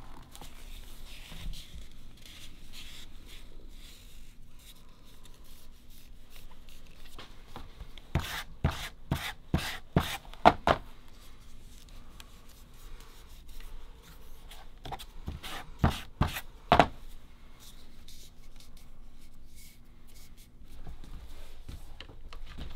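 Newspaper rustling and crinkling as it is rolled and handled by hand, with two clusters of loud sharp clicks, one about eight seconds in and another around sixteen seconds in.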